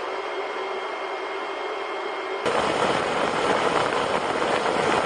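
A 12-volt radiator fan running, a steady whir with a faint high hum. About two and a half seconds in it gives way to a much louder rush of air buffeting the microphone, a fan blast measured at about 20 mph.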